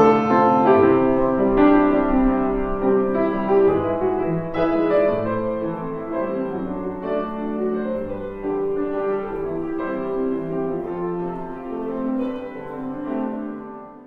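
Instrumental background music led by piano, with a new note about every second, slowly getting quieter and fading out at the very end.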